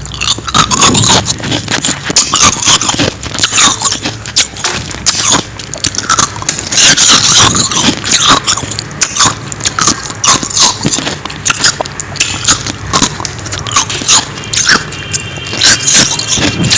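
Close-up biting and chewing of frost ice: a dense run of sharp, crackly crunches.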